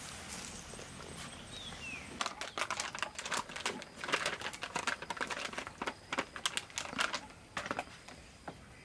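Plastic flour bag crinkling and rustling as flour is shaken out of it into a stainless steel bowl: a dense run of quick, irregular crackles from about two seconds in until near the end.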